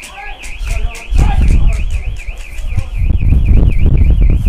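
Electronic alarm siren warbling steadily, rising and falling about two to three times a second. Wind buffets the microphone loudly from about a second in.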